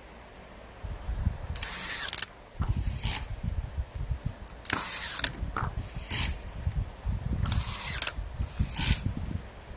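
Parts and hand tools being handled while a power supply board is fitted: irregular short ratcheting, clicking rattles, about eight in all, over low knocks and bumps.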